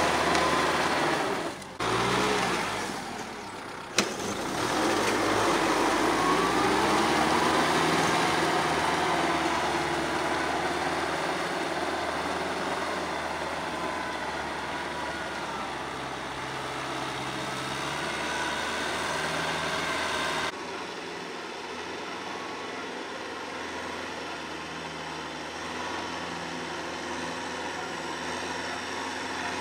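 Diesel tractor engine running under load while driving a rotary tiller through wet paddy mud, its pitch slowly rising and falling. The sound breaks off and jumps suddenly a few times.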